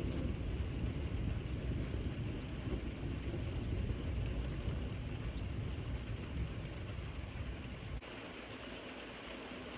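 Steady rain with a long low rumble of thunder that slowly fades; about eight seconds in the rumble cuts off abruptly, leaving only the hiss of the rain.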